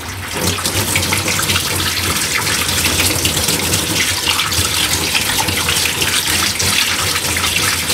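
Kitchen tap running steadily into a sink, with water splashing over hands being washed under the stream.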